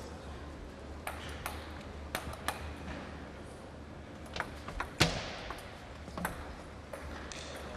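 Celluloid table tennis ball clicking in sharp, separate strokes against the table and the bats, the loudest about five seconds in, over a steady low hum.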